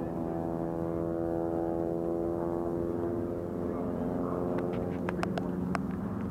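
Steady drone of a propeller aircraft's radial piston engines flying over, holding one even pitch. A few sharp clicks come in over it near the end.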